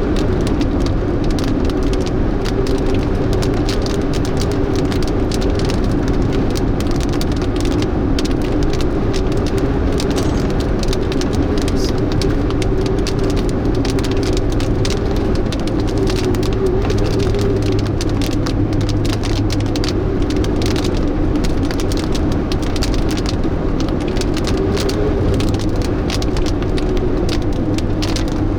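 Steady road and engine noise inside a moving car, with many fine ticks from rain striking the car.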